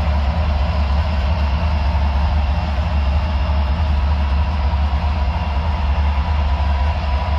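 HO scale model trains running on the layout: a steady, unbroken hum and rumble of locomotive motors and wheels on the track.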